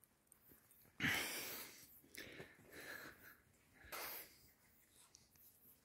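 Heavy breathing close to the microphone: four breaths about a second apart, the first the loudest.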